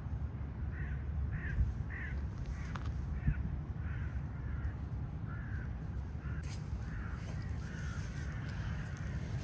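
A bird calling in a long, even series of short calls, about two a second, over steady low background noise.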